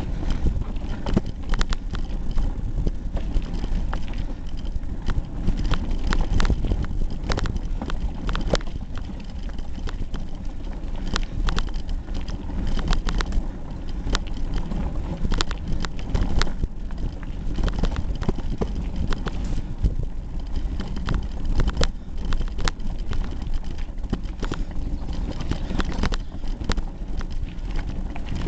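Hardtail mountain bike rattling over a rough, rocky forest trail, picked up through a camera duct-taped to the handlebars: a steady low rumble of tyres on the ground with frequent sharp knocks and clatters from the frame and bars.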